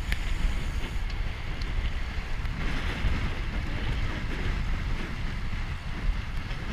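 Wind rushing over the microphone of a camera on a moving road bicycle: a steady low rumble.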